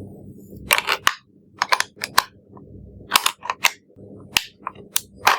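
A rapid, irregular series of sharp clicks and clacks, about a dozen, some coming in quick clusters.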